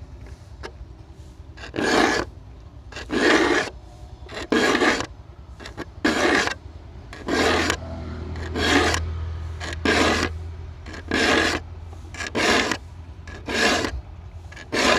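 A hand file rasping across the steel teeth of an 18-inch Tekiro handsaw in even strokes, about one every 1.3 seconds, sharpening the saw two strokes per tooth at a 45-degree slant.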